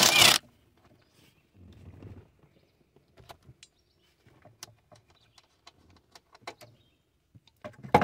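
A cordless Ryobi power driver runs in a short burst, backing out the 10 mm bolt that holds the seat belt retractor. It is followed by scattered light clicks and rattles from the belt webbing and retractor being handled.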